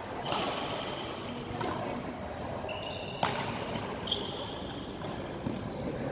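Badminton shoes squeaking sharply on the court floor several times, with a couple of crisp racket hits on a shuttlecock, over general hall noise.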